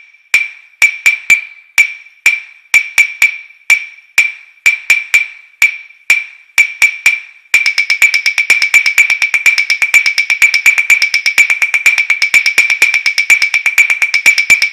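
A short, high percussive tick, all on one pitch, repeated in a syncopated rhythmic pattern. About halfway through it turns into a fast, steady stream of ticks.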